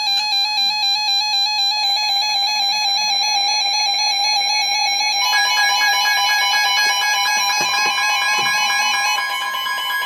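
Electronic synthesizer music made of fast, evenly stepping trilled tones, with new layers joining about two seconds and five seconds in.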